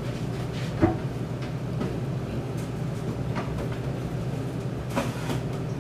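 Steady low background hum with a few light knocks or clicks, the sharpest about a second in and another near the end.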